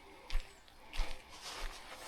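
Footsteps of a person walking, about three steps at a steady walking pace, each a soft thud with a scuff, over a steady faint hiss of rain and running water.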